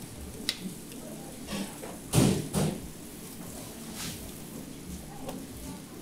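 A large hand-held cutting blade pressed down through a slab of crisp purple rice candy, with a loud two-part crunching thud about two seconds in, a sharp click before it and a few lighter knocks after, over a steady background hum.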